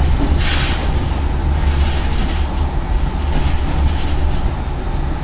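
Yōrō Railway passenger train running between stations, heard from inside the car: a steady low rumble with a short rush of noise about half a second in.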